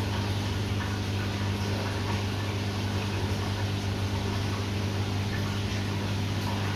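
A steady low hum from a running appliance or machine, unbroken and even in level.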